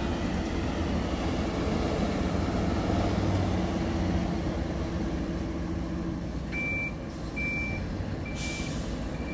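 John Deere 350G excavator's diesel engine running steadily under working load as the machine swings a bucket of stone. About two-thirds of the way through, a backup alarm starts beeping at an even pace, about one beep every 0.7 s, with a short hiss shortly before the end.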